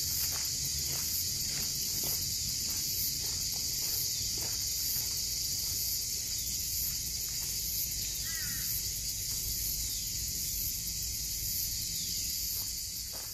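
Steady high-pitched drone of insects in dry bushland, with footsteps on a dirt track in the first few seconds that fade as the walker moves off; a short bird chirp about eight seconds in.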